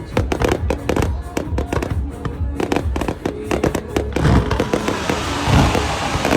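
Fireworks going off in rapid sharp pops and bangs over music with held notes. From about four seconds in, the bursts merge into a dense, continuous crackle.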